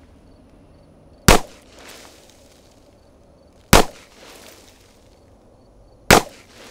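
Three single handgun shots, evenly spaced about two and a half seconds apart.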